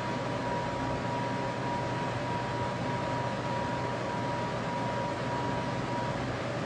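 Steady hum and hiss of machinery, with a thin high tone that cuts off about six seconds in.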